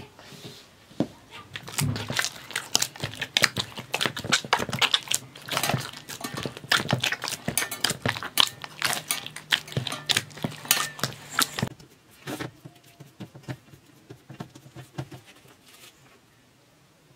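Bread dough being kneaded by hand in a metal bowl: a dense run of short wet smacks and scrapes, thinning out to a few faint ticks after about twelve seconds.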